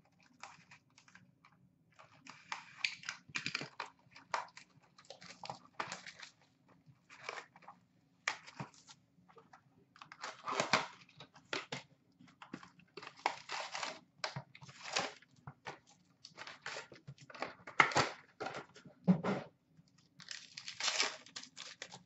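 A trading-card hobby box being opened and its packs taken out: wrapping tearing and crinkling, with cardboard and foil card packs handled, in short irregular bursts.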